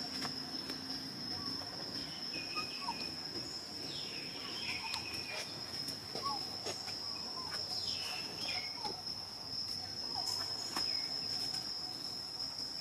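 Steady, high-pitched drone of insects, with short high calls now and then, several falling in pitch.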